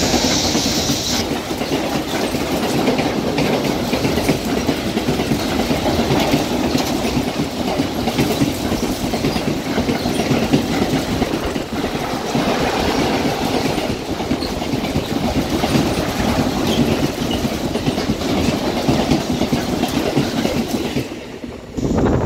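Freight train of car-carrier wagons behind electric locomotive E.483 302 passing at speed: a brighter, higher rushing sound in the first second as the locomotive goes by, then a steady loud rumble with rapid wheel clatter over the rail joints as the wagons roll past. The sound falls away about a second before the end as the last wagon clears.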